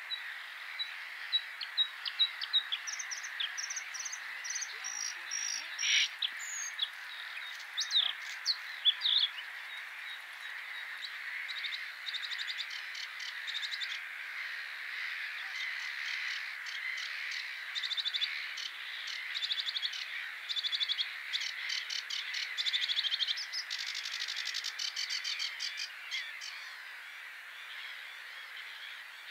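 A sedge warbler singing in reeds: long, fast, scratchy chattering phrases from about ten seconds in. Before that, separate high whistled and clicking bird notes. A steady hiss lies underneath throughout.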